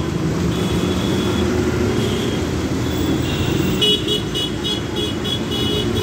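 City bus running along a road, with engine and road noise heard from inside the cabin. From about four seconds in, a rapid run of high beeps, about five a second, sounds over it.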